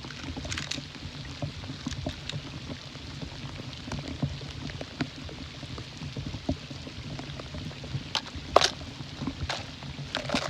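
Rain pattering, with scattered close ticks and taps and a steady low rumble of wind on the microphone; one sharper tap comes about eight and a half seconds in.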